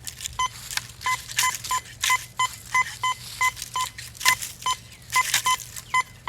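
Teknetics Patriot metal detector giving short beeps of one pitch, about three a second, as its coil is swept over a penny buried nine inches deep, with discrimination set to 1. A swishing noise comes between the beeps.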